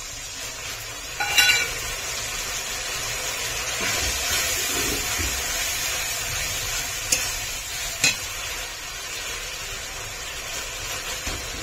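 Spice paste frying and sizzling in hot oil in a pan as it is stirred, a steady hiss with a short metallic clink about a second and a half in and two sharp taps around seven and eight seconds.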